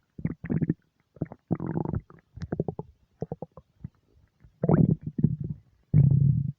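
Human stomach gurgling and rumbling in irregular runs of short gurgles. There are two longer, louder rumbles, one at about two-thirds of the way through and one near the end.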